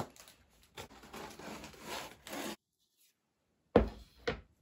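Box cutter slicing through the tape and cardboard of a flat-pack furniture box, a scraping rasp lasting about two seconds. Near the end come two dull thumps as the opened cardboard box is handled, the first the loudest.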